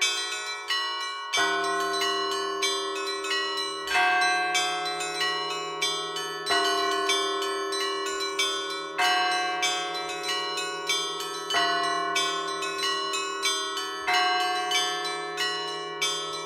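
Several church bells rung in a repeating peal: a deeper bell struck about every two and a half seconds, with smaller bells ringing quickly in between.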